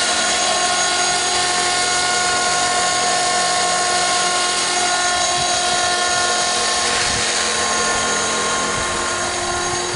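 Align T-Rex 450 Pro electric RC helicopter flying, with the steady high whine of its motor and drivetrain over the rotor's hum, holding a nearly constant pitch.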